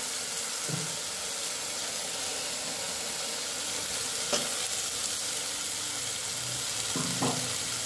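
Spice paste and fried onions sizzling in hot oil in a kadai as the masala is fried, with a steady hiss. A steel spatula stirs the paste and knocks briefly against the pan about four seconds in and again near the end.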